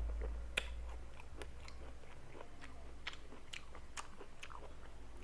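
Close-up chewing of crunchy raw jicama and unripe mango, a string of sharp crisp crunches, the loudest about half a second in.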